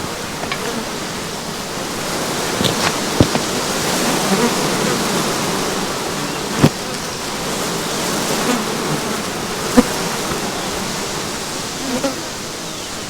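A huge swarm of tens of thousands of flies buzzing together in a dense, steady drone, with a few brief sharp ticks scattered through it.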